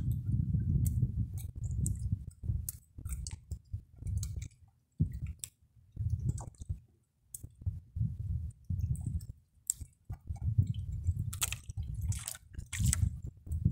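Irregular low sloshing and knocking of water against the hull of a small wooden fishing boat, mixed with many short sharp clicks and ticks from fishing line and tackle being handled.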